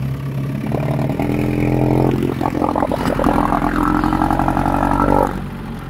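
Mercury 110 outboard motor running under way. It comes up in level about a second in, runs steadily, then eases back about five seconds in.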